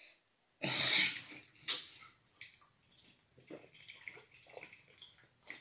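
A person drinking from a tall can: a noisy slurping sip just under a second in, a shorter one soon after, then faint gulps and wet mouth clicks.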